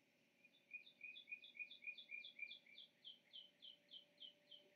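Faint bird song: a long run of short, repeated chirps at about four a second, fading toward the end.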